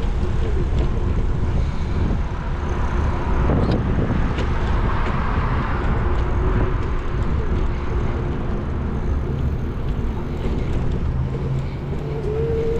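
Steady low rumble of a car driving along a city street: engine and road noise with traffic around.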